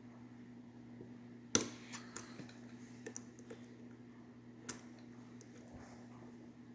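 Small metallic clicks and ticks of a dimple lock pick and tension tool working the pin-in-pin cylinder of a Maxtech dimple lock. There is one sharp click about a second and a half in, a few lighter ticks after it, and another click near five seconds, over a steady low hum.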